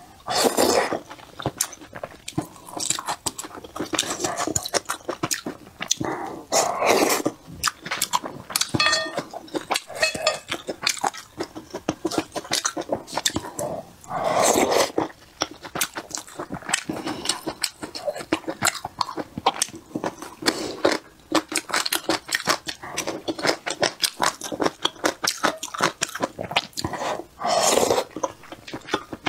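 Close-miked eating of wontons in soup: wet chewing and mouth clicks throughout, broken by a few louder slurps as wontons are sucked in.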